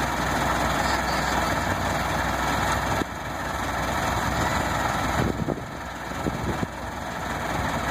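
1913 Studebaker's engine idling steadily, with a few low thumps in the second half.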